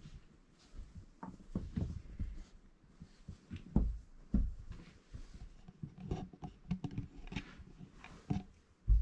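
Four-week-old Irish Setter puppies scuffling and wrestling on blankets in their pen, with irregular soft knocks and scrabbling. There are louder thumps about four seconds in and again just before the end.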